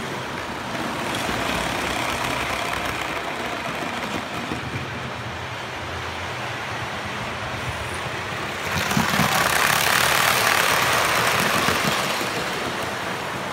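HO scale model trains running on the track, a steady whir of wheels and motors. From about nine seconds in a second train passes close by, and the sound is louder for about three seconds.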